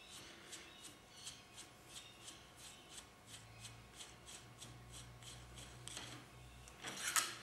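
Faint, soft clicking and rubbing, about three clicks a second, as the hydraulic stop is screwed off the threaded end of a KTM fork's damper rod by hand.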